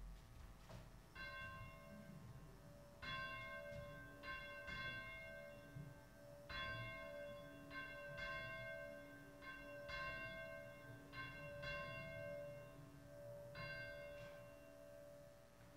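Church bell chimes playing a slow, faint series of struck ringing notes, unevenly spaced like a tune, with the lower tones hanging on between strikes.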